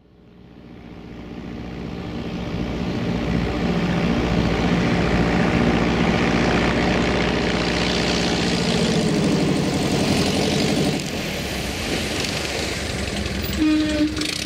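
Super Cub light plane's piston engine and propeller droning as it comes in low, growing louder over the first few seconds, then dropping somewhat in level about eleven seconds in.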